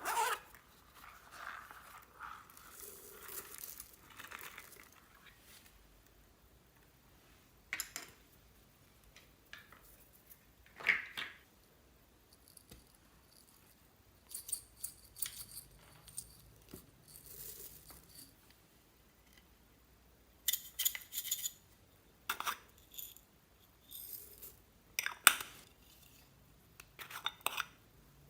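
Slime being handled while random items are mixed into it: scattered clicks, crinkling and tearing-like rustles come in short bursts with quiet gaps between, the sharpest clicks about eleven seconds in and near the end.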